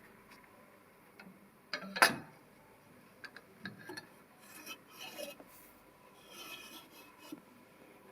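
Steel parts of a lathe backstop (bar, threaded-rod extensions and end piece) being handled, with one sharp metallic clank about two seconds in, then lighter clicks, clinks and rubbing.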